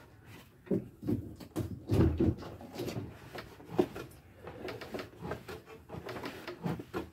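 Irregular knocks and clunks, loudest about two seconds in, from a SeaStar boat steering helm being cranked by its wheel as the steering cable feeds into its gearbox, with the wooden dash console being handled.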